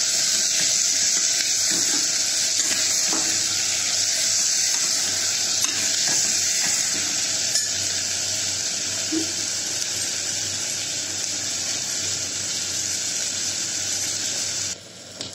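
Sliced onions sizzling steadily in hot oil in an aluminium pressure cooker, frying toward light brown, with a spoon scraping against the pot now and then as they are stirred. The sizzle cuts off sharply near the end.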